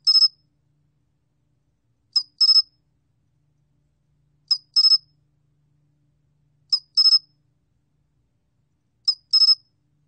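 솔귀뚜라미 cricket singing, recorded at 21 °C: a short high chirp followed at once by a quick run of a few pulses, the pair repeated about every two and a quarter seconds, five times.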